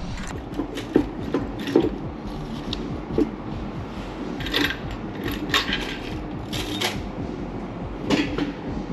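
Metal knocks and scrapes as a Honda K24A cylinder head is handled and lifted off the engine block. A few sharp clunks come in the first three seconds, then several longer scraping sounds.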